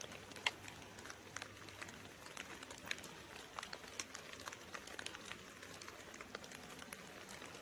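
Faint outdoor audio from handheld camera footage in a leafless winter woodland: a low hiss with many irregular sharp clicks and crackles, several a second.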